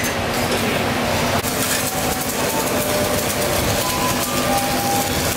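Workshop machinery running steadily: a loud mechanical din with a low hum and metallic rattling, growing brighter about a second and a half in, with a few short whistle-like tones near the end.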